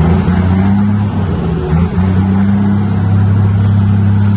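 Scania 124 truck's diesel engine running while driving, heard from inside the cab. Its steady note steps up at the start and breaks briefly about two seconds in.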